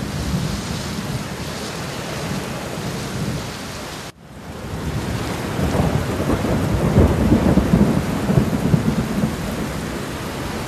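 Ouzel Falls roaring, with spray pelting down close by: a steady rushing noise. It cuts out briefly about four seconds in, then comes back louder with a deep low rumble.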